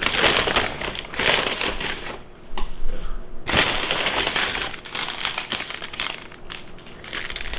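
Paper takeout bag crinkling and rustling as it is handled and opened, in irregular bursts, with a short lull about two seconds in and a sharp crackle about a second later.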